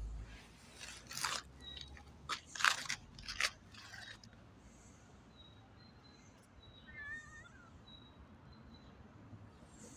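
Footsteps crunching on a leaf-strewn paved path: about five irregular steps in the first four seconds. About seven seconds in there is a short, wavering chirp.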